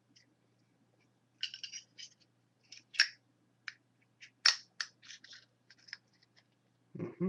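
Metal Zippo lighters handled, giving a run of metallic clicks and clinks. The two sharpest clacks come about three seconds in and a second and a half later, and there is a duller thump near the end.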